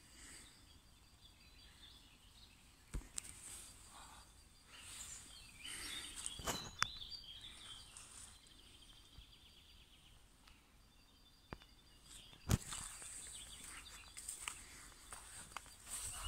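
Woodland birds chirping and singing faintly, with a few sharp clicks or snaps, the loudest about twelve and a half seconds in.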